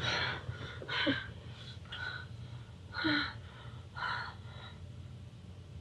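A person breathing hard in short gasps, about one a second, growing fainter and stopping after about four and a half seconds.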